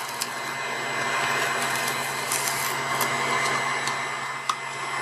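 Hot air gun's fan running steadily on the bench with a faint hum and whine, while a knife blade pries the touchscreen glass away from its heat-softened adhesive, giving a scattering of small sharp clicks and ticks.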